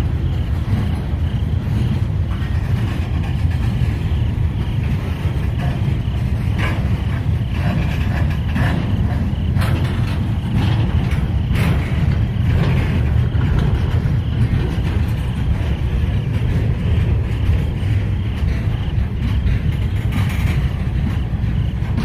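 Freight cars of a mixed freight train rolling past close by: steel wheels running on rail in a steady low rumble, with scattered sharp clanks and clicks, thickest in the middle stretch and again near the end.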